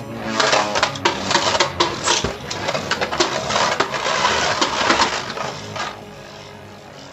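Beyblade Burst spinning tops, a 3D-printed Pharaoh Ultraus against Rage Longinus, clashing and scraping in a battle stadium: a rapid, dense clatter of clicks and knocks that dies down about six seconds in.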